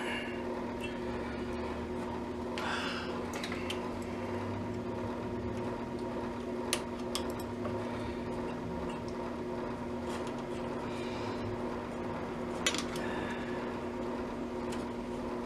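Steady electrical hum with a few sharp clicks and one short scrape as hand tools work on the radio chassis to remove a coil.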